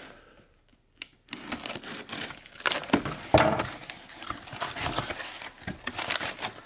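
Packing tape on a cardboard box being slit with a Spyderco pocket knife and the flaps pulled open: irregular crackling and tearing of tape and cardboard, starting about a second in and loudest about three seconds in.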